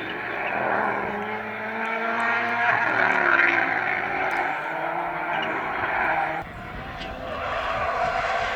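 Rally car engine revving hard past the stage side, its pitch rising and falling through gear changes and loudest about three seconds in; the sound changes abruptly about six and a half seconds in, where the engine note drops away.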